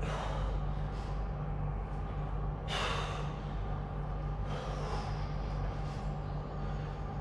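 A man breathing out hard through his mouth and nose about every two seconds, in time with the slow reps of a dumbbell hammer curl, over a steady low hum.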